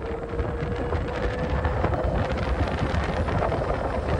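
Ola S1 Pro electric scooter accelerating in Eco mode, its motor whine rising slowly in pitch as it gathers speed, over heavy wind rumble on the microphone.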